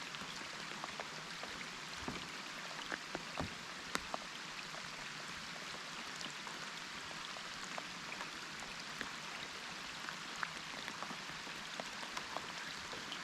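Rain falling: a steady hiss with many irregular drop ticks.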